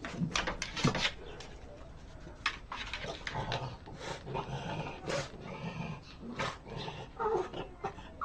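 A small dog scratching with its claws at a wooden door again and again, making vocal noises as it does.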